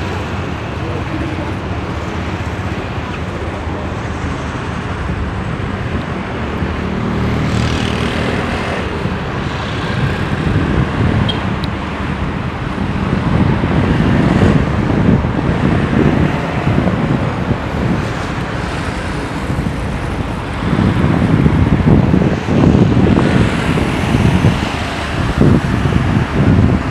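Road traffic noise, a continuous low rumble with no distinct engines picked out, swelling louder about halfway through and again near the end.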